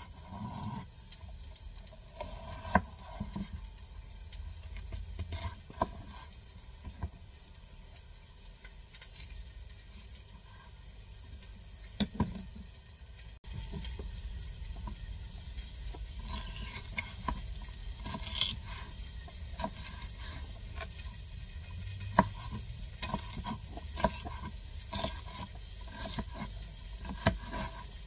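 Chef's knife chopping a green bell pepper on a plastic cutting board: irregular knocks of the blade on the board, a few of them sharper and louder.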